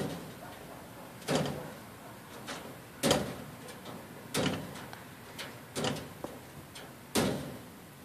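A cat batting at a window screen with its front paws, the mesh rattling in its frame at each strike: five knocks, roughly one every second and a half.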